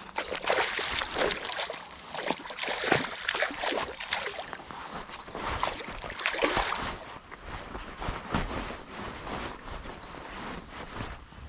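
Water splashing and sloshing in a string of irregular surges.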